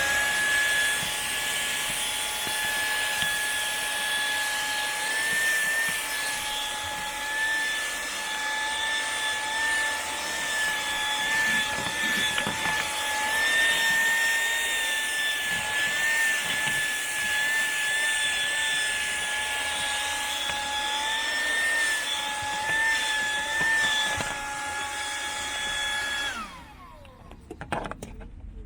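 12-volt SEHENTOOLS CV108 car vacuum cleaner running with a steady high whine over a rush of air, its pitch wavering slightly now and then. About 26 seconds in it is switched off and the motor winds down.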